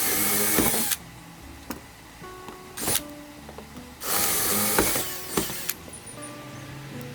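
Power drill drilling out the rivets that hold a sailboat's deck to its hull, in separate bursts: two of about a second each and one short one between them. Background music plays under and between the bursts.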